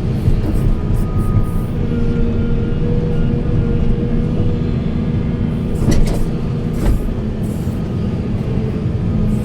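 Volvo 480 heavy excavator working: a steady diesel engine rumble with a hydraulic whine over it, and two sharp knocks about six and seven seconds in.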